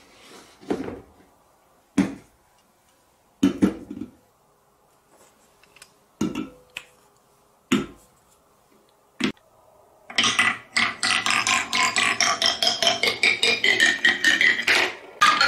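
Wooden track pieces set down with a sharp knock every second or two. Then, from about ten seconds in, a glass marble drops down a tree-shaped marble run, striking its colored leaves one after another in a quick run of clicking, ringing notes.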